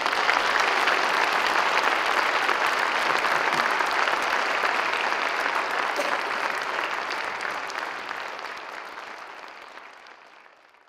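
Audience applauding: dense, steady clapping that fades away over the last few seconds.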